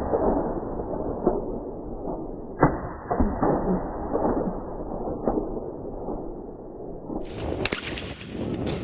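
A single shotgun shot at a trap clay target about two and a half seconds in, sounding muffled, with fainter knocks before and after it. Near the end the sound turns brighter, with wind on the microphone and a sharp click.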